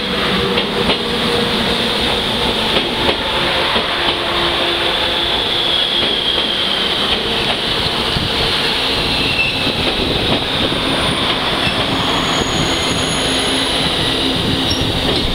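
JNR 485-series electric train running slowly into the station, its wheels clicking over rail joints a few times early on while a high squeal from the wheels and brakes slowly falls in pitch.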